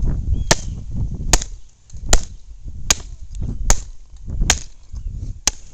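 Heavy Cold Steel Rifleman's Hawk tomahawk chopping into a dry log: seven sharp, evenly spaced strikes, about one every 0.8 seconds.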